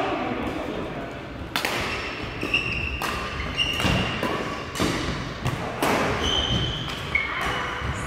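Badminton rally: rackets striking a shuttlecock in a fast exchange, with sharp cracks about once a second and short high squeaks of shoes on the court floor in between.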